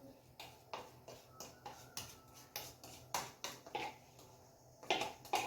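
Light, irregular clicks and taps of kitchen utensils and containers being handled at the counter while bread-dough ingredients are added, a few a second, loudest near the end.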